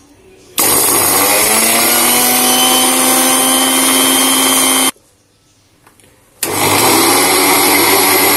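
Electric mixer grinder running in two pulses, grinding fried dried fish to powder. The motor starts about half a second in with a rising whine as it spins up, runs for about four seconds, stops, then starts again about a second and a half later.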